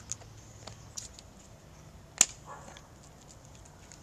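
A few small plastic clicks and one sharp snap about two seconds in, from a plastic Easter egg being handled.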